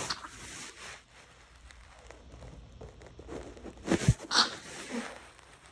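A wet, half-stifled cold sneeze about four seconds in, after a breathy catch and a low bump, with the bed sheets rustling against the phone's microphone as it goes off.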